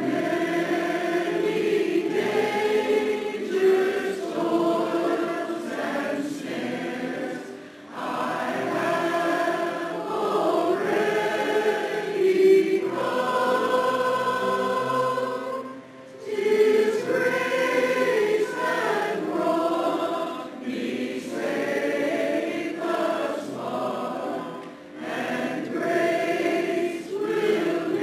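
A community chorus singing in harmony, the phrases breaking off briefly about every eight seconds.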